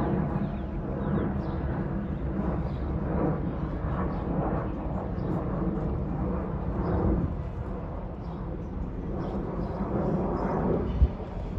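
Distant jet engine rumble of a Boeing 737 airliner flying overhead on approach, steady throughout, with a brief thump near the end.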